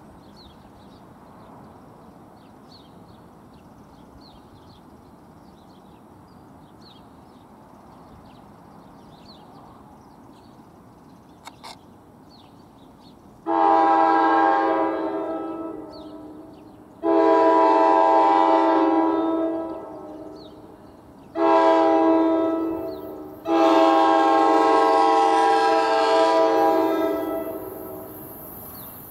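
Train horn on an NJ Transit locomotive sounding the grade-crossing signal: two long blasts, a short one and a final long one, starting about halfway through. The horn is a multi-note chord, a Nathan K5LA five-chime. Faint bird chirps come before it.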